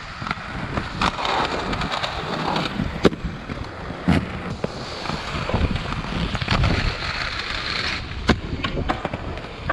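Inline skate wheels rolling over rough concrete, a steady gritty rolling noise broken by a few sharp clacks, about 3, 4 and 8 seconds in.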